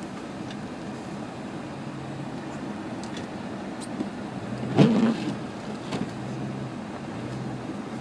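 Cabin sound of a 1998 Subaru Legacy Outback's flat-four engine running with steady road and wind noise. About five seconds in there is a single loud, brief thump.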